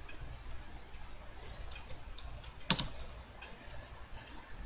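Keys tapped on a computer keyboard: a handful of scattered short clicks, the loudest about halfway through.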